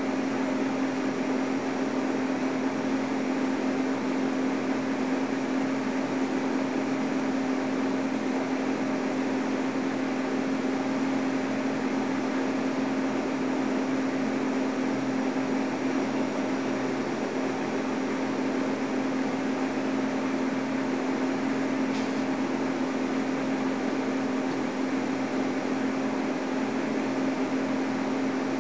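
Diesel road-switcher locomotive's engine running steadily at low throttle, heard from a distance as a constant low drone with a hiss of noise above it. A faint single click comes about three-quarters of the way through.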